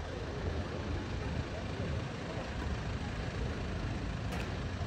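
Steady rumble of vehicle engines and street traffic noise, with a faint murmur of voices.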